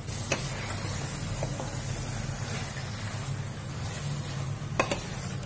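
Marinated chicken pieces frying in coconut oil in a steel pan, a steady faint sizzle, while a steel spoon stirs and scrapes them, clinking sharply against the pan about a third of a second in and again near the end. A low steady hum runs underneath.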